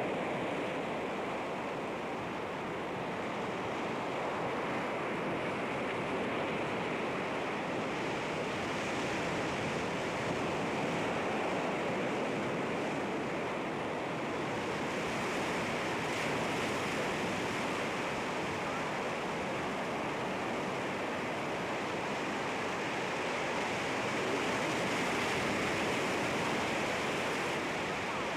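Sea waves breaking against rocks: a continuous wash of surf that swells and eases slowly, without distinct crashes.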